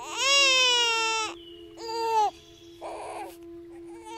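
Newborn baby crying: a long high wail for about the first second, a shorter cry about two seconds in, a gasping breath, then more crying near the end.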